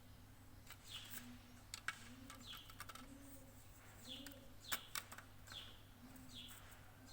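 Faint birdsong: short falling chirps repeated every second or so, over a low repeated cooing. A few sharp clicks stand out, loudest about two seconds in and near five seconds in.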